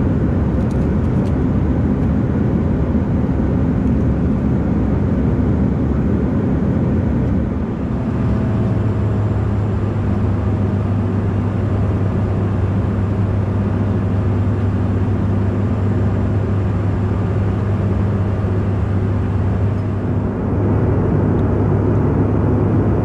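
Cabin noise of a Mitsubishi CRJ-1000 regional jet: a steady rush from its rear-mounted turbofan engines and the airflow. About eight seconds in, a deep steady hum sets in and holds.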